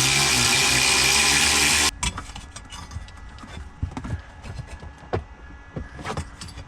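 A/C refrigerant recovery machine running with a loud steady hiss and low hum, cutting off abruptly about two seconds in. Light clicks and knocks of handling follow.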